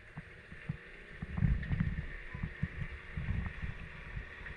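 Kayak paddling on calm water: faint water splashing and lapping, with irregular low gusts of wind rumbling on the microphone.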